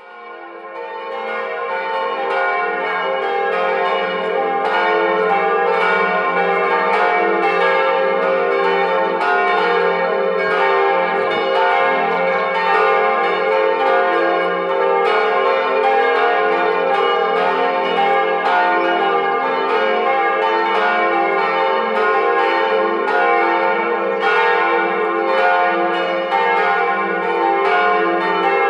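Several church bells ringing together in a full peal, their strikes overlapping irregularly with long ringing tones; the sound fades in over the first couple of seconds.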